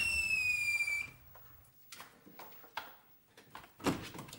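A high whistle glides slowly down in pitch and cuts off about a second in. Then come a few soft, spaced knocks of footsteps on wooden floorboards.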